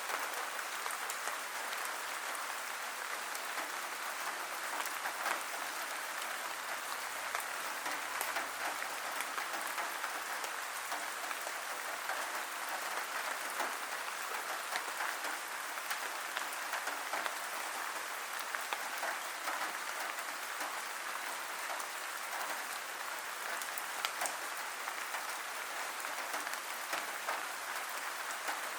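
Steady rain falling, a dense even patter of many small drops with crackling ticks throughout.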